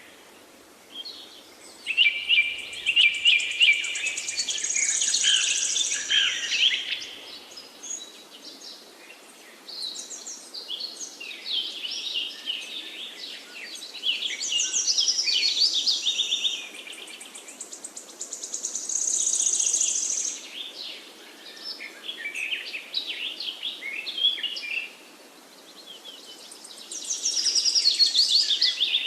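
Songbirds singing in bursts of quick chirps and high buzzy trills every few seconds, over a faint steady background hiss.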